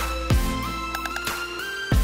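Background music: a melody of held notes stepping up and down over a low drum beat.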